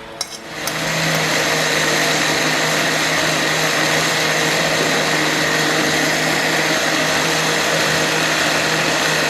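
Electric kitchen blender switched on about half a second in, its motor then running steadily at one speed.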